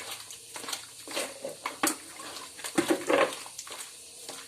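Ripe noni fruit being crushed and squeezed by hand in water, with irregular wet squelching and crackling; the loudest squishes come about two and three seconds in.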